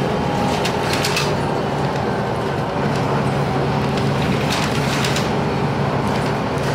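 Heuliez GX 317 diesel city bus driving, heard from inside the cabin: a steady engine drone with a whine that drifts slightly in pitch. Rattles and knocks from the body come about a second in and again near five seconds.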